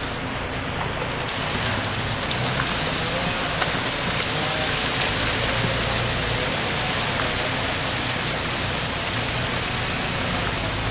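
Melting ice dripping and dropping off ice-coated trees, a steady rain-like patter with many small ticks, growing a little louder after the first second or so.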